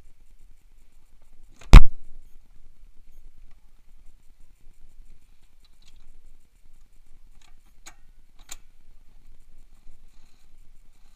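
Parts and tools being handled during assembly of a mini dirt bike's rear shock mounting: one loud knock about two seconds in, then two lighter clicks about half a second apart some six seconds later.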